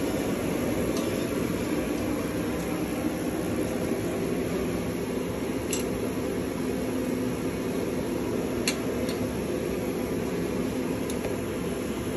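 Steady mechanical hum, with a few light clicks scattered through the second half.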